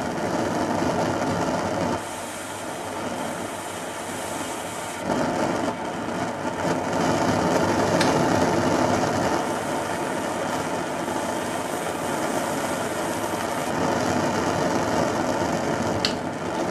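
Homemade vaporizing methylated-spirit 'super burner' (a copper-tube jet burner) roaring steadily. The spirit is vaporizing in the heated copper tube and burning as a jet, which shows the burner is running self-sustained.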